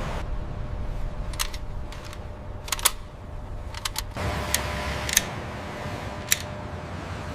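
A series of sharp mechanical clicks, about eight of them and some in quick pairs, over a steady low rumble with a faint hum.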